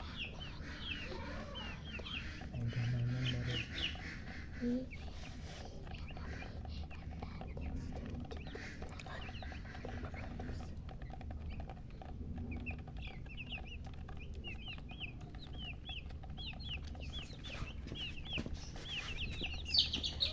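Baby chicks peeping in quick, high chirps, in scattered runs early on and a dense run through the second half, with a hen clucking low a few times near the start, over a steady low hum.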